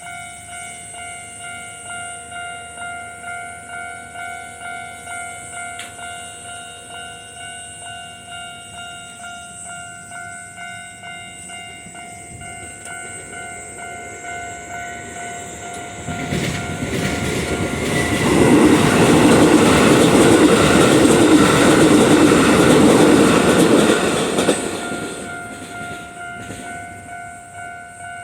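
Japanese level-crossing warning bell ringing in a steady, even ding-ding, about two to three strikes a second. About 16 s in, a Keikyu Line train approaches and passes loudly for about six seconds, then fades by about 26 s while the bell keeps ringing.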